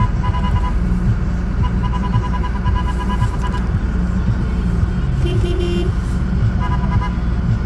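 Vehicle engine rumbling under load during a tow, heard from the cabin. A warning chime beeps rapidly in several short runs over it, about eight beeps a second.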